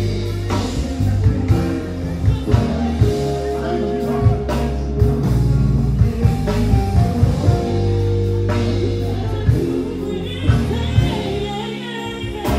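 Live R&B band, with drum kit, bass, keyboard and electric guitar, playing a slow groove under a lead melody of long held notes.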